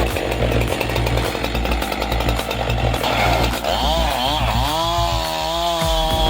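Chainsaw cutting wood. About halfway through, its engine pitch wavers and then climbs to a steady high rev.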